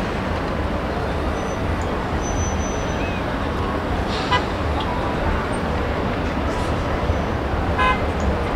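Steady noise of heavy city traffic, with a short car horn toot about four seconds in and another near the end.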